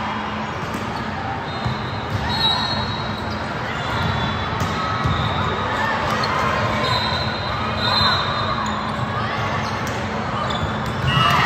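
Volleyball rally in a large gym: a few sharp smacks of the ball being hit, over a steady background of spectators' voices and chatter.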